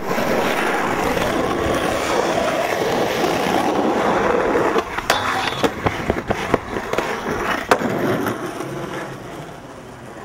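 Skateboard wheels rolling on pavement, with several sharp clacks of the board about halfway through and again near the end, as the rolling fades away.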